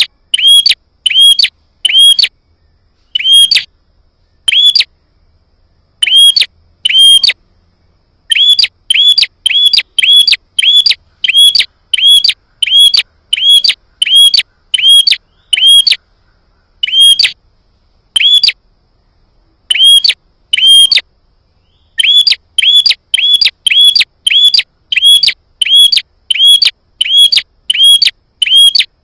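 Prinia (prenjak) song: a long run of short, sharp, identical chirps, about two a second, with a few brief pauses. It is a lure call meant to provoke another prinia into answering.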